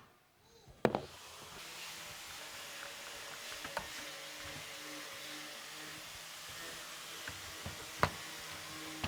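A small electric motor starts about a second and a half in and runs steadily with a hiss and a low hum. A sharp knock of wood comes just before it starts and another near the end, with a few light clicks between.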